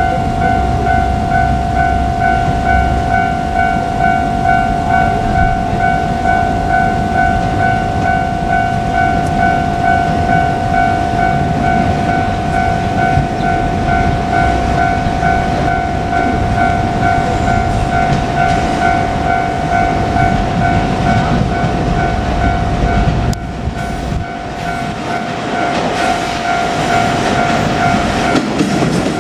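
A level-crossing warning bell rings in a steady, even pulse over the rumble and wheel clatter of passing trains. The bell stops near the end.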